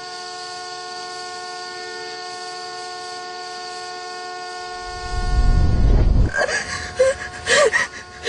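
A car horn held down in one long steady blare. About five seconds in, a loud low rumble of a car crash cuts across it, followed by sharp crashing bursts and short cries.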